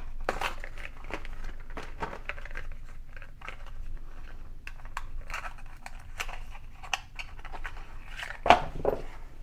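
Rustling and crinkling of packaging being handled and opened to take out a new spark plug, with many small clicks and taps and a louder knock near the end.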